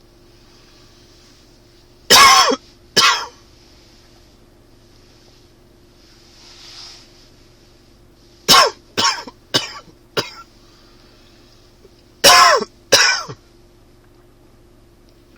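A man's dry allergy cough in bouts: two coughs, then a quick run of four, then two more near the end.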